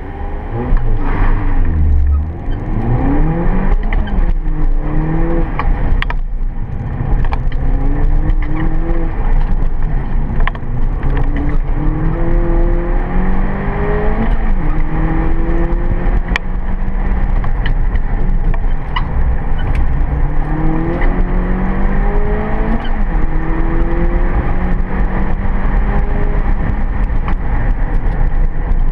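MINI Cooper GP's four-cylinder engine heard from inside the cabin, revving hard through the gears. The pitch climbs steadily and falls back at each upshift or lift for a corner, again and again, with occasional sharp clicks and rattles in the cabin.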